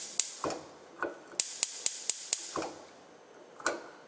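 Gas range's spark igniter clicking, a quick run of about four sharp clicks a second in the middle, with a few duller knocks in between.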